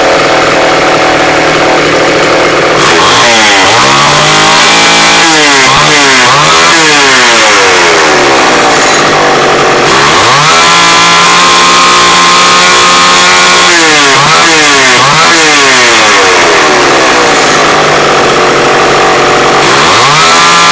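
Homelite XL Automatic two-stroke chainsaw running on its test run after reassembly. The throttle is blipped in several bursts so the revs climb and fall, with steady running between, and the revs rise again near the end.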